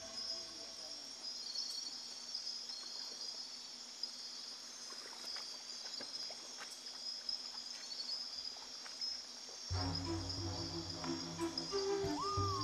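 Night-time insect chorus in the rainforest, a steady high-pitched shrilling with a few faint clicks. Background music comes in about ten seconds in.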